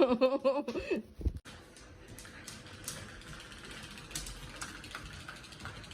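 Battery-powered toy mouse running with a steady mechanical whirr and scattered light clicks.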